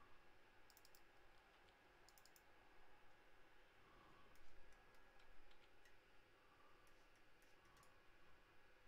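Faint clicking of a computer mouse: two quick runs of about four clicks in the first few seconds, then scattered single clicks.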